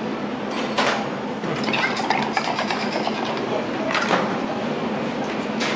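Commercial kitchen clatter: dishes and metal utensils clink and knock about four times over a steady rushing background noise.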